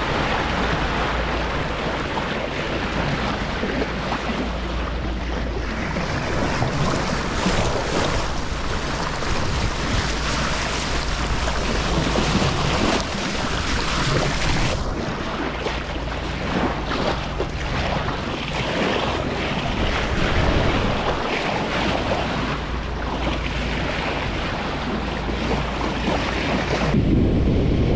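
Sea water rushing and splashing past a motoring sailboat's hull at the bow wave, with wind buffeting the microphone and the boat's engine humming steadily underneath. Near the end the hiss of the water drops and a louder low wind rumble takes over.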